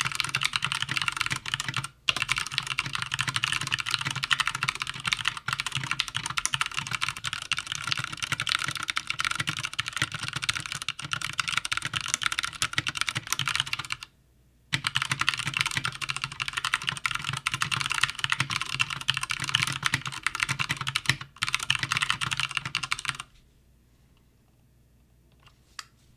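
Fast continuous typing on a Poker II mechanical keyboard with Cherry MX Red linear switches and thick PBT keycaps in an MKC aluminium case. It pauses briefly a few times and stops about three seconds before the end.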